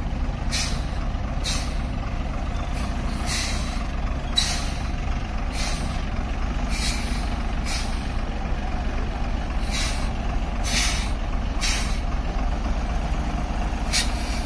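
Truck running on the road with a steady low engine rumble, and about a dozen short hissing bursts, roughly one a second at uneven intervals.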